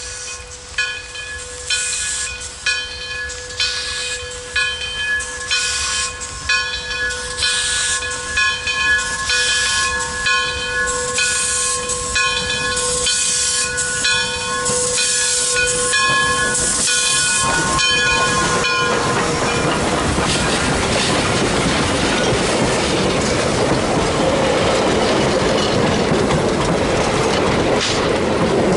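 Frisco 1630, a 2-8-0 steam locomotive, working toward a grade crossing with its whistle blowing several notes at once, held long, over a quickening beat of exhaust chuffs. The whistle stops about two-thirds of the way in. The engine and its coaches then pass close by with a loud, steady rush of steam and rolling wheels.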